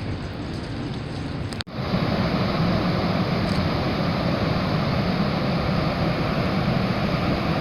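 Steady roar of the San Rafael waterfall, a broad even rush with a heavy low rumble. It cuts out briefly about one and a half seconds in and comes back louder.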